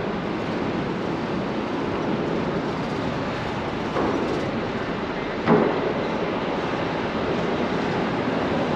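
Steady din of a city construction site and street traffic, with two knocks, a small one about four seconds in and a louder one about a second and a half later.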